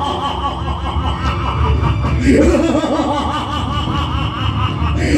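Loud, drawn-out laughter in a long run of quick pulses, rising in pitch about two seconds in.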